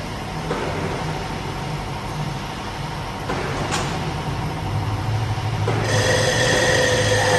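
CNC wood lathe running with a steady mechanical hum and a sharp tick about halfway through. About six seconds in, a high-pitched whine sets in and the machine gets louder.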